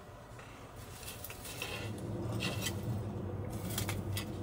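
Dishes and utensils being handled: scattered clinks and light knocks, a few with a brief ring, over a low steady hum that grows louder about a second and a half in.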